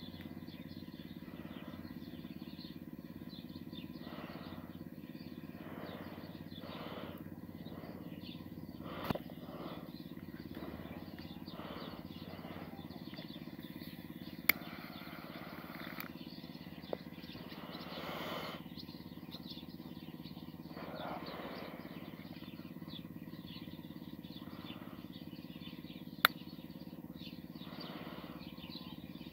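Outdoor background of a steady low hum with faint short chirp-like sounds, broken by a few single sharp clicks, the loudest near the middle and shortly before the end.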